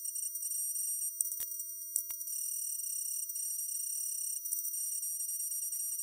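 Electric arc welding on steel: a dense faint crackle of the arc over a steady high-pitched whine, breaking off briefly about four and a half seconds in as the arc stops and restarts.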